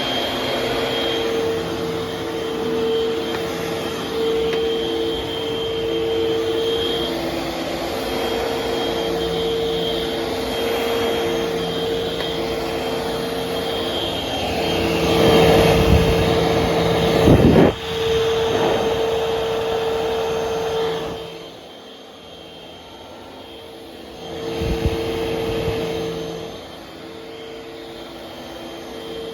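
Eureka vacuum cleaner running with a steady motor whine. It swells louder around sixteen seconds in, then drops to a quieter level a few seconds later while still running.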